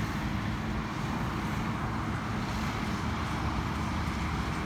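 Steady rumble and hiss of road traffic, running on without breaks.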